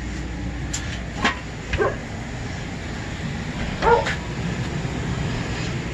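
Central air conditioning system running with a steady low hum. A few short, sharp sounds sit on top of it, the loudest a brief pitched cry about four seconds in.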